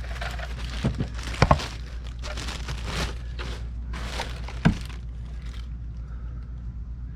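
Handling noise from the air purifier unit and its packaging: several sharp knocks, one louder near the end, and rustling, over a steady low hum.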